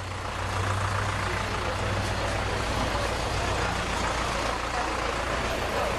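An engine running steadily: a low hum under a constant wash of noise.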